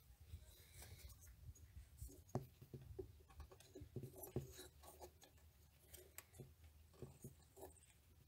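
Near silence with faint, scattered small clicks and rubbing: hand handling of a plastic mass airflow sensor as it is pressed back into its port on the intake.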